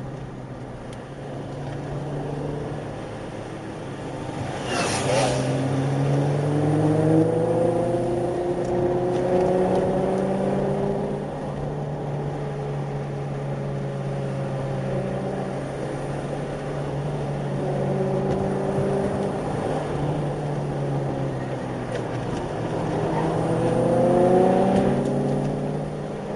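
Sports car engines on a winding downhill run, heard through a dashcam inside the following car: steady engine running with revs climbing under acceleration about five seconds in and again near the end, shifting between gears. A brief high chirp about five seconds in.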